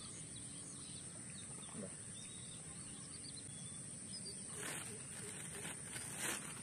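Faint bird chirps over a steady high hiss. From about four and a half seconds in, a run of rustling as a cloth bag is handled.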